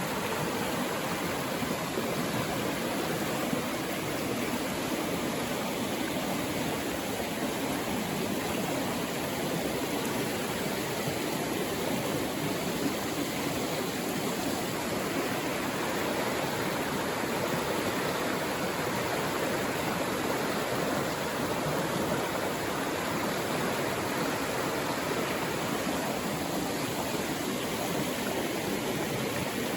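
Mountain stream water rushing and splashing over rocks, a steady, even rush of water.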